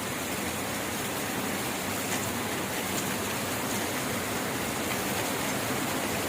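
Heavy tropical rain pouring down, a dense steady hiss of rain on the ground and surfaces.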